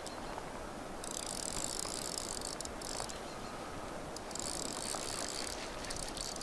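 Fly reel's click-and-pawl ratchet buzzing in two bursts, each of a second or two, as line is wound in. The first comes about a second in and the second past the middle.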